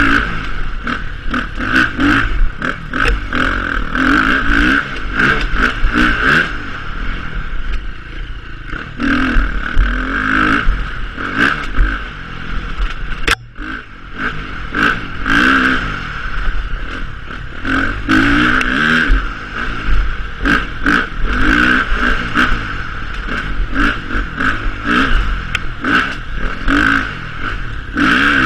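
2015 KTM 350 XCF-W four-stroke single-cylinder dirt bike engine being ridden hard off-road, the revs rising and falling again and again under throttle, with rattles and knocks from the bike and terrain throughout. The engine dips briefly about halfway through.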